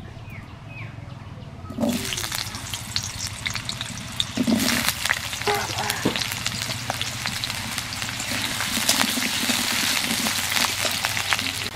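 Cubed potatoes going into hot mustard oil in an aluminium kadai, sizzling and crackling from about two seconds in; near the end a steel spatula stirs them in the pan.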